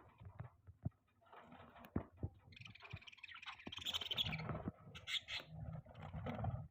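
Budgerigars chattering and chirping in an irregular jumble, densest in the middle, with a few sharp clicks mixed in.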